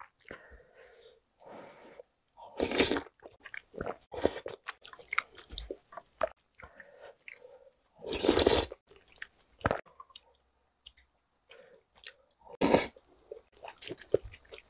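A person eating chewy jjolmyeon noodles in spicy soft-tofu soup: wet chewing, broken four times by loud noodle slurps.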